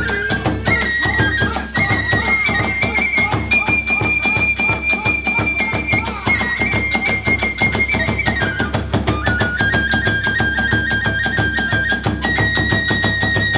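Kagura festival music: a bamboo flute plays long held high notes that step up to a peak and back down, over a fast steady beat of drums and percussion.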